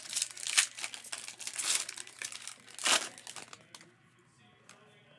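Foil wrapper of a Panini Prizm Racing trading-card pack being torn open and crinkled in the hands: a run of crackles and rips, the loudest about a second and three seconds in, dying away after about four seconds.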